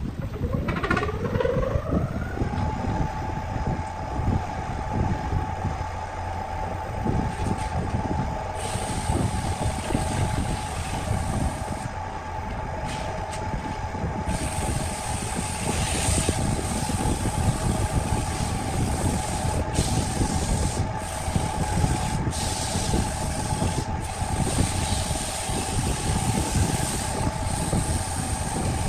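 Belt-driven electric wood lathe starting up: its whine rises over about two seconds, then it runs at a steady pitch. From about eight seconds in, a high hiss comes and goes as the spinning wood is worked by hand.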